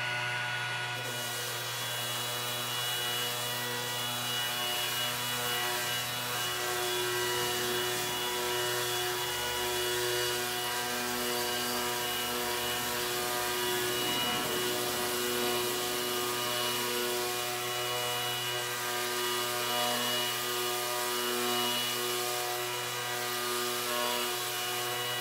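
Bosch GEX 18V-125 cordless random orbital sander running at a steady speed while sanding a wooden board: an even motor drone with a hiss of abrasive on wood.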